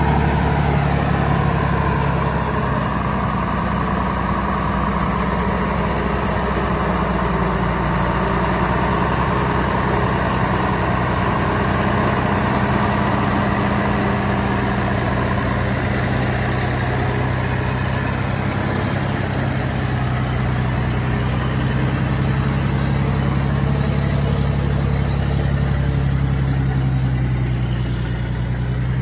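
Heavy modified truck engine running steadily at a low, even pitch, easing slightly lower near the end.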